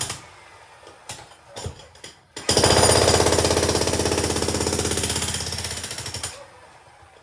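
Makita HM1810 electric demolition hammer breaking up a concrete slab in rapid, even blows. It stops just after the start, a few knocks follow, then it starts again about two and a half seconds in and runs for nearly four seconds before stopping.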